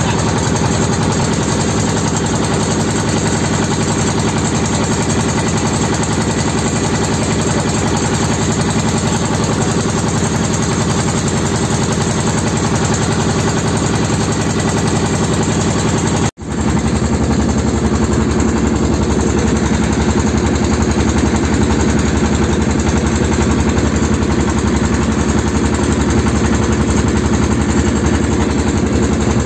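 Engine of a small wooden river motorboat (pompong) running steadily underway. It drops out for an instant about halfway through, then carries on.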